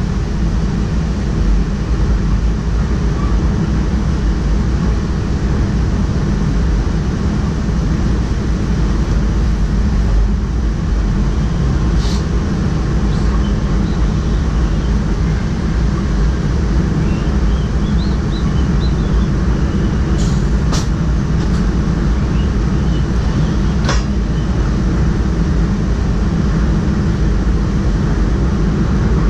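A train running, heard from inside the driver's cab: a steady low rumble, with a few sharp clicks partway through.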